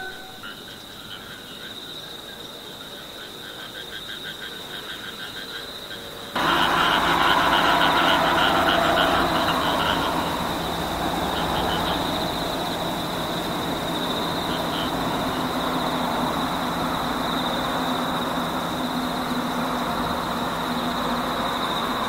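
Summer field ambience: a chorus of frogs and insects, with a steady high-pitched trill and rhythmic pulsed calls. About six seconds in it abruptly turns louder, and a broad steady hiss comes in under the calls.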